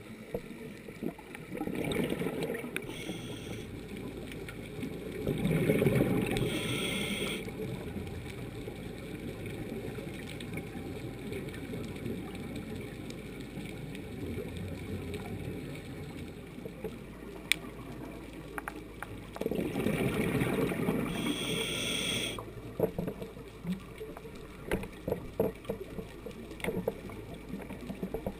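Muffled underwater sound picked up through a camera housing, with three gurgling bursts of exhaled bubbles from a scuba diver's regulator, about 2, 6 and 20 seconds in, and scattered sharp clicks.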